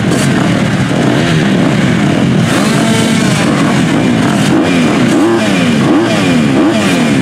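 Several motocross bike engines revving together behind the starting gate, riders blipping their throttles up and down in overlapping quick rises and falls while they wait for the gate to drop.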